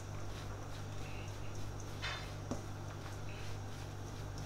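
A gloved hand kneads and mixes a moist rice mixture in a stainless steel bowl, with faint squishing and rustling and one brief louder rustle about two seconds in. A steady low hum runs underneath.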